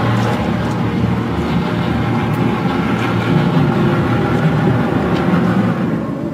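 Steady rumble of passing vehicle traffic, with a few faint ticks.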